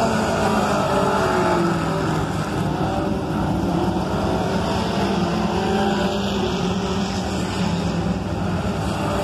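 Pure Stock dirt-track race car engines running at speed on practice laps, their pitch rising and falling as the cars go around the oval.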